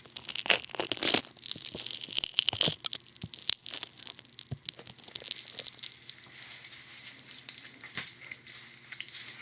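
Funny Foam, a foaming soap, squished against the ear of a binaural dummy-head microphone: dense wet crackling and popping, busiest for the first three seconds and then softer and sparser.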